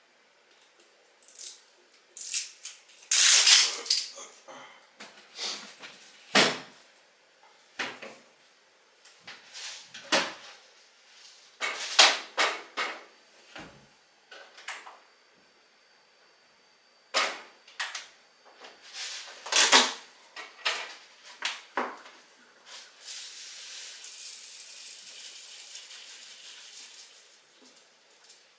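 Irregular clicks, clatters and knocks of objects being handled, then a steady hiss lasting about five seconds near the end.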